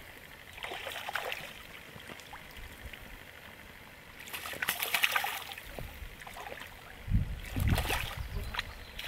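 A hooked fish splashing and thrashing at the surface of shallow river water in three bursts, the last the heaviest, as it is played toward a landing net.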